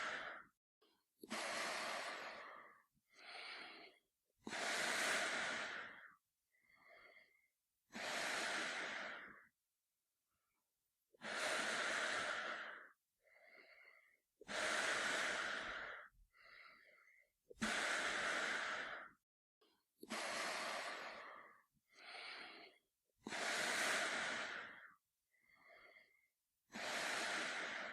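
A man breathing slowly and heavily through a gas mask. Long, loud, airy breaths come about every three seconds, most of them followed by a shorter, fainter breath.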